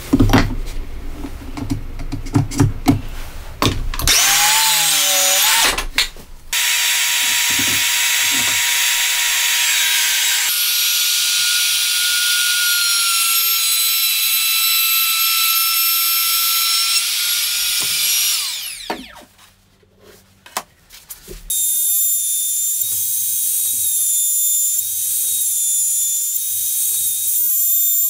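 A Makita KS511DZ cordless circular saw cutting through a pine board for the first few seconds. Then a compact trim router runs with a steady high whine while routing through a wooden template jig, stops for about two seconds about two-thirds of the way in, and starts again to cut on to the end.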